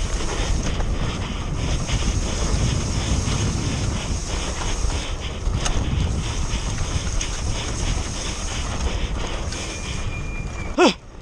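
Mountain bike descending a muddy trail at speed: wind rushing over the camera microphone, with the rattle and clatter of the chain and frame over the bumps. Near the end a steady high tone is followed by a brief, loud sound that sweeps sharply up in pitch.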